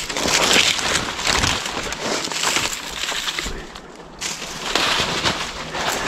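Irregular rustling and crackling of dry leaves and twigs close by, with a short lull about three and a half seconds in.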